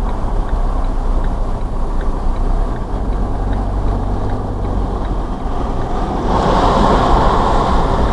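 Van driving, its engine and road noise heard from inside the cab as a steady low hum. About six seconds in, a louder rushing noise joins.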